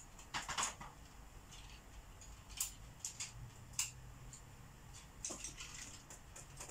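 Felt-tip markers scratching across paper in short coloring strokes, with a few sharp clicks in between, the loudest about two and a half and nearly four seconds in.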